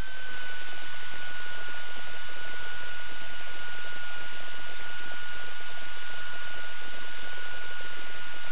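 Steady static hiss from a cockpit intercom/radio audio feed, with a thin steady high whine running under it.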